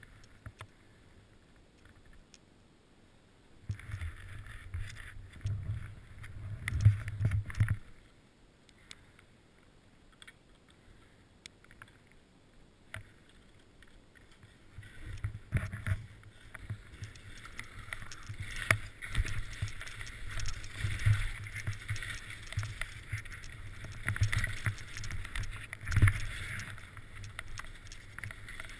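Skis sliding and scraping over snow, with wind rumbling on an action camera's microphone. The noise comes in two stretches: about four seconds in for a few seconds, then after a quiet pause it picks up again about halfway through and runs on.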